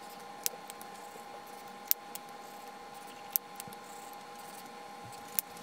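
Zebra Mildliner highlighters being swatched on notebook paper: four sharp clicks, a second or two apart, as pen caps snap on and off and pens are swapped, over a faint steady hum.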